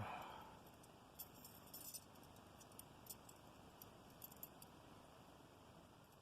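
Faint metallic clinks and jingles of a metal wire puzzle's rings and wire bird being turned in the hands, in a few scattered clusters. It opens with a brief soft rush of noise.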